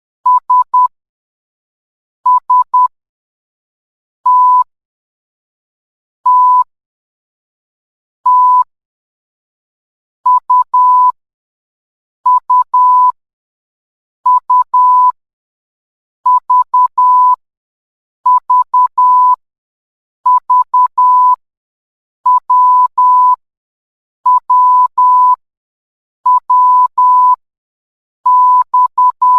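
Morse code sent as beeps of one steady tone, keyed in groups of short and long beeps, one letter about every two seconds with a short silence between letters.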